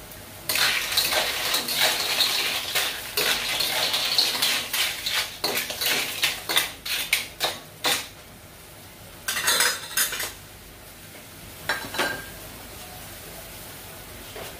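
Metal spatula scraping and clattering against a black wok while clams in their shells are stirred, dense for the first few seconds, then breaking into separate clinks and two short bursts of clatter later on.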